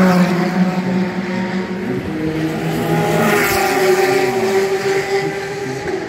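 Endurance race cars passing on the circuit at speed, their engines dropping in pitch as they go by.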